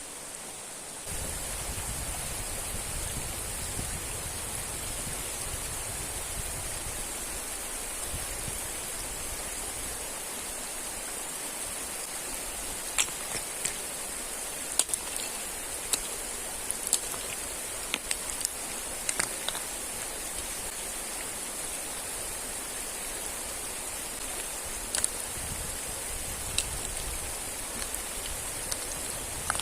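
Steady rushing of a river and waterfall. From about halfway through it is broken by scattered sharp clicks and snaps.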